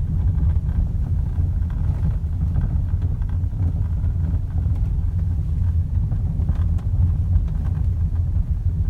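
Volkswagen Passat B8 with a steady low rumble throughout and a few faint knocks, the steering rack noise the car is being recorded for.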